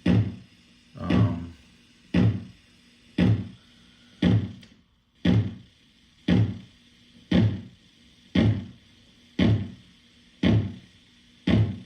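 Homemade analog kick drum circuit, a TL074 op amp with a bridged-T network in its feedback loop, played through a speaker. It gives a low, quickly decaying thump about once a second, each starting with a short click.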